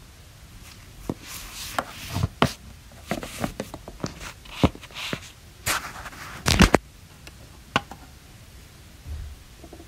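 Small plastic toys being handled and moved about on hard surfaces: irregular clicks, knocks and short scrapes, the loudest cluster about six and a half seconds in.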